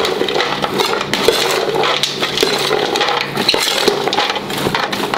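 Soaked raw white beans and chopped herbs being stirred in a stainless steel mixing bowl, the beans rattling and clicking against the metal in a dense run of small clicks.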